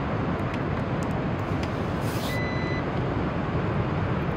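A single short electronic appliance beep about two seconds in, as an air fryer is plugged into a portable power station and powers up, just after a brief hiss. A steady low rumble of outdoor background noise lies underneath.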